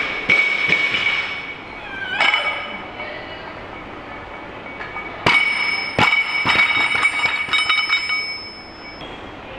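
A 60 kg barbell loaded with bumper plates clanks as it is pulled from the floor and again about two seconds in as it goes overhead. About five seconds in it is dropped: it hits the platform and bounces several times, and the bar, plates and collars clink with a high metallic ring that dies away.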